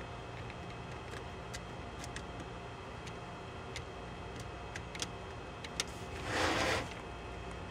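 Faint scattered clicks of small standoffs being twisted by hand onto the circuit board's mounting screws, over a steady low hum. About six seconds in comes a short rustle, the loudest sound.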